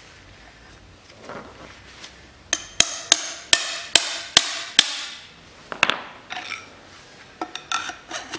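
Hammer blows on a steel drift, knocking the oil seal and bearing out of a Land Rover Defender front hub. A quick run of about seven ringing metallic strikes, a few a second, is followed by several scattered lighter ones.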